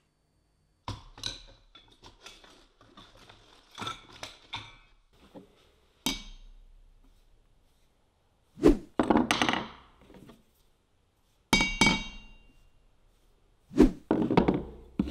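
Steel hammer striking a bent vintage chisel on an anvil to straighten it. Light metal clinks and taps in the first half, then a few heavy blows in the second half, some leaving a short metallic ring.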